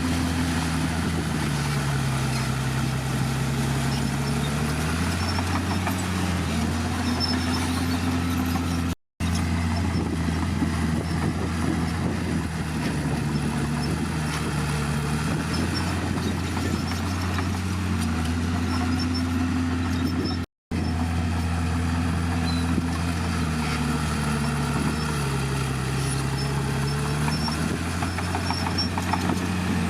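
Diesel engine of a Komatsu D51PX crawler bulldozer running under working load, its pitch dipping and recovering several times as the load comes on and eases. The sound breaks off for an instant twice.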